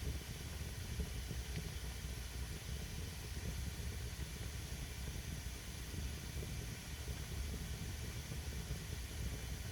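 Wet firewood burning: a steady hiss of steam escaping from the damp wood over a low rumble, with a few faint ticks.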